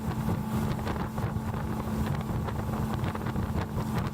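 Boat motor running steadily at trolling speed, a constant low hum, with wind buffeting the microphone.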